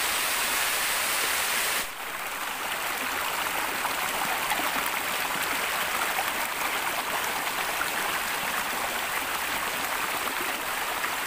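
Shallow rocky stream rushing and babbling over stones, a steady wash of water. About two seconds in, the sound cuts to a slightly quieter take of the flowing water.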